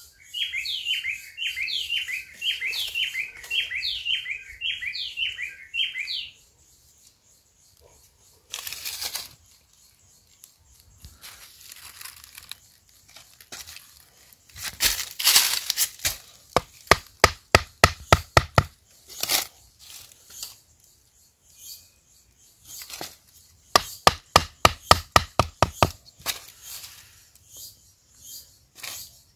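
A bird calling for the first six seconds or so, a run of about a dozen quick high chirps. In the second half a blade chops wood in runs of sharp knocks, several a second.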